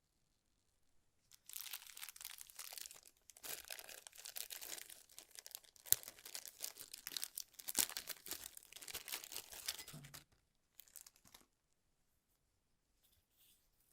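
Keyboard packaging being handled and unwrapped: a dense crackling rustle lasting about nine seconds, then two brief rustles.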